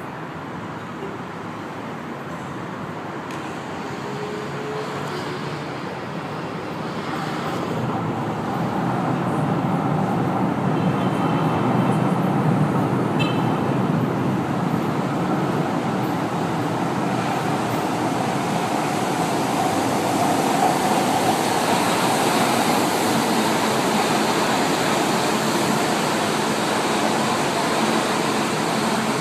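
São Paulo Metro train running through the station: the rumble and rail noise build over the first ten seconds or so, then hold steady, with a faint tone in the running noise.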